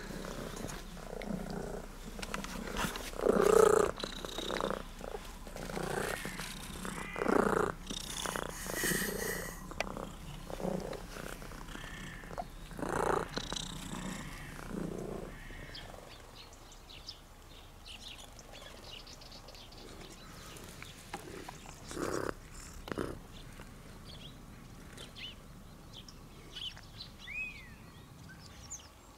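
Domestic cat purring close to the microphone while being stroked, with louder rustles and bumps as it rubs against the hand and camera during the first half; quieter after that.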